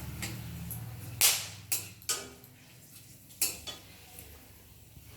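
A metal spoon or spatula knocking four times against a cooking pan while whole spices are stirred in hot oil. The first clank, about a second in, is the loudest; a low steady hum stops just before it.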